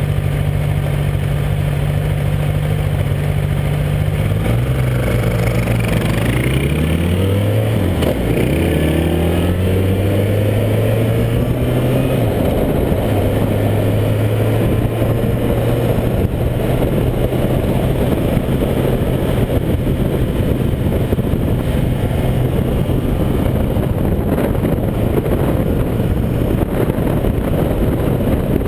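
Motorcycle engine idling, then pulling away and accelerating through a few gear changes, its pitch rising and dropping back at each shift, before settling to a steady cruise with wind rushing past the microphone.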